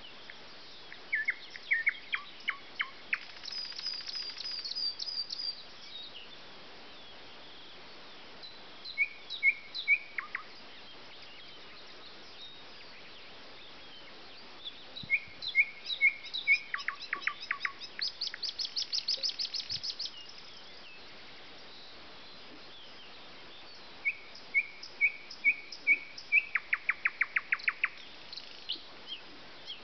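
Songbirds singing. One bird repeats a phrase of a few even notes followed by a fast, rattling, falling trill, four times, while another adds higher, rapid trills twice.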